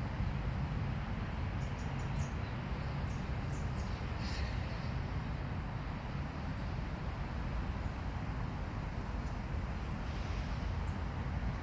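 Steady low outdoor rumble, with faint scattered crunching clicks from stray cats chewing their food, most of them between about two and five seconds in.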